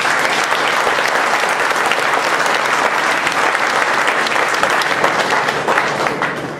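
Audience applauding: dense, steady clapping that thins out into scattered claps near the end.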